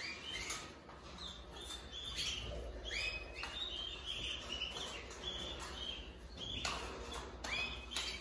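Domestic canaries chirping: a run of short, quick chirps, many rising in pitch, with a few light clicks as a plastic nest bowl is fitted into a wire cage.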